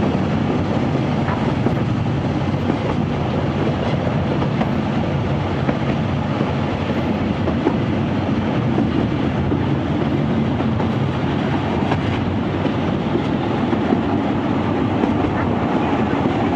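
Narrow-gauge steam train heard from its open coach: a steady running rumble of the carriages on the track, with occasional faint clicks.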